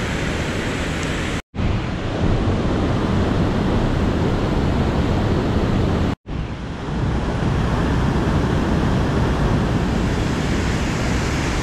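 Steady rushing of whitewater rapids on the Merced River, heavy in the low end, broken twice by brief cuts to silence about a second and a half and six seconds in.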